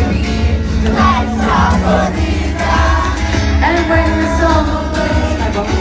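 Loud amplified pop music over a concert sound system: a singing voice over a heavy, steady bass beat, played during a soundcheck.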